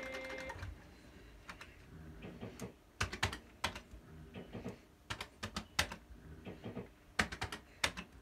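Fruit machine's buttons being pressed and its mechanical reels spinning and clunking to a stop, heard as clusters of sharp clicks about every two seconds. A short electronic tone sounds at the very start.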